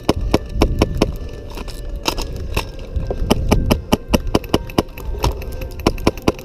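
Airsoft guns firing: sharp cracking shots coming several a second in irregular strings, some in quick runs.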